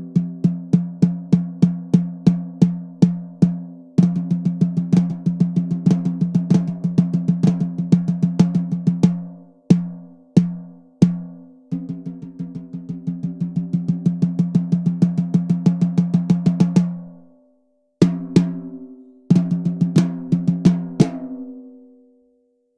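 Sakae 14 x 6.5-inch brass snare drum played with sticks, tuned fairly loose with no dampening. Runs of quick strokes swell in volume, broken by a few separate accented hits and short pauses, and each stroke rings on with a low drum tone.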